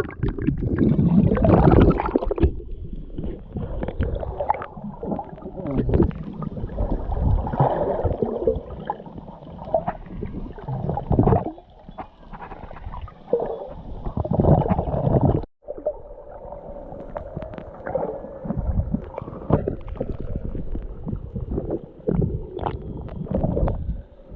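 Muffled water sloshing and gurgling around a camera held at and under the sea surface while swimming, in irregular surges. The sound breaks off briefly twice.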